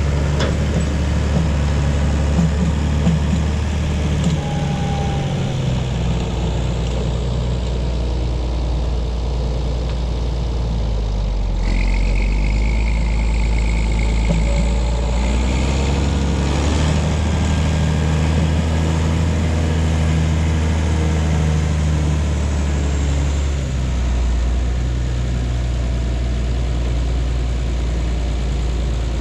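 A John Deere 7520 tractor's diesel engine running under changing load while pushing dirt with a blade; its pitch and level shift a few times. A brief high whine sounds about twelve seconds in.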